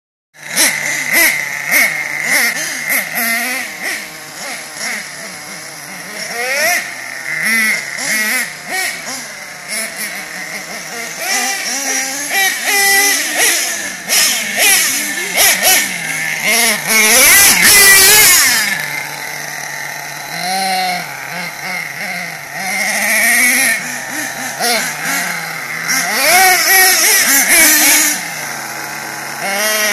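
Small nitro (glow-fuel) engines of radio-controlled monster trucks running hard, their high-pitched buzz revving up and down in quick, wavering rises and falls as the trucks are driven, with a loud surge about halfway through.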